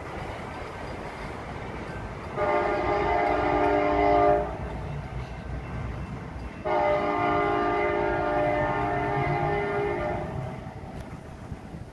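Multi-chime air horn of the departing B&O heritage passenger train's locomotive sounding two long blasts, a chord of several held tones: the first about two seconds long, the second about four seconds long from the middle. The train's low rumble runs beneath and fades as it draws away.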